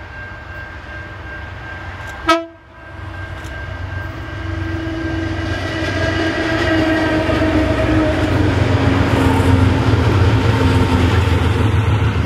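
Diesel locomotives on a grain train passing close by. A sustained horn-like tone drops in pitch as they go past. The deep rumble of the loaded hopper wagons then builds, with a sharp click about two seconds in.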